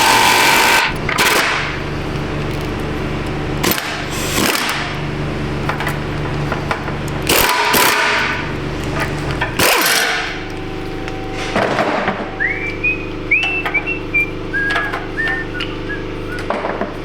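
Impact wrench run in several short bursts, driving an exhaust pipe expander to stretch the pipe for a tighter fit, over a steady mechanical hum. A few short high chirps come late on.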